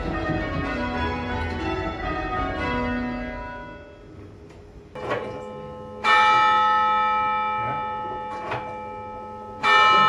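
Tower bells rung by a band of change ringers, many bells overlapping, thinning out and fading over the first few seconds as the bells are stood. Then a single church bell strikes loudly twice, about three and a half seconds apart, each stroke ringing on and slowly dying away.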